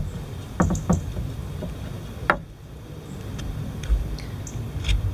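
Lino-cutting gouge shaving an ash stick: a few short, sharp scraping cuts and clicks, a second or so apart, over a low rumble.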